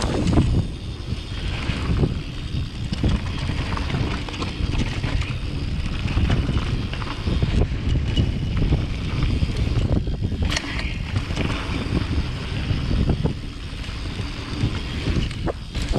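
Downhill mountain bike riding: wind buffeting the microphone over the steady rumble and rattle of the bike on a rough dirt trail, with sharp knocks about ten and a half seconds in and again near the end.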